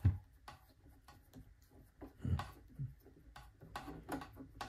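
Scattered small clicks and a few light knocks, about two to three seconds in, from a screwdriver backing a screw out of a Kenmore 385 sewing machine's plastic housing while the part is handled.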